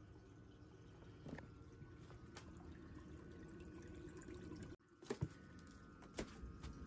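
Faint trickle of water in shallow turtle tanks, with a few light clicks and a brief dropout about two-thirds of the way through.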